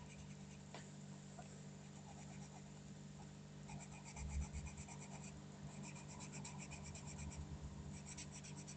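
Colouring pen scratching back and forth on card, in quick, even strokes that come in runs of a second or two as the buttons are coloured in, over a faint steady hum.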